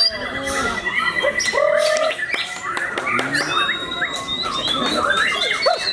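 White-rumped shamas (murai batu) singing in competition: many short whistles, chirps and harsh calls from several caged birds overlapping without a break.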